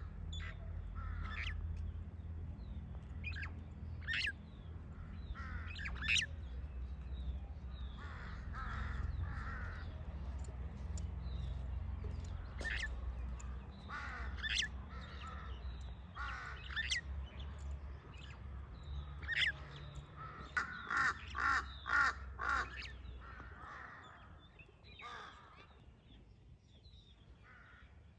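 Birds calling: runs of quick, harsh, crow-like calls, loudest about three quarters of the way through, with sharp high chirps in between, over a low steady rumble that fades away near the end.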